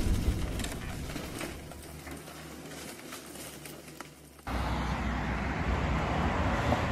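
The tail of a booming intro sound effect dies away with scattered faint crackles. About four and a half seconds in it cuts suddenly to steady outdoor street noise: wind rushing on the microphone and passing car traffic.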